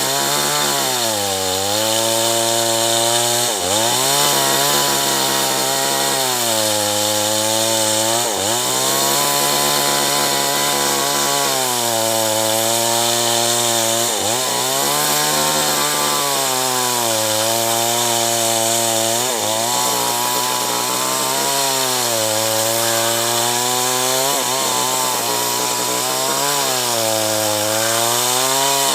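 Two-stroke chainsaw running at high revs while cutting acacia wood, its engine pitch dropping and climbing back every few seconds as the chain bites into the cut.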